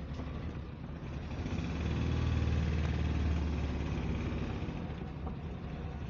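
Suzuki Mehran's small three-cylinder petrol engine running in reverse gear, heard from inside the cabin. It swells louder about two seconds in as the car is driven back, then eases off about two seconds later.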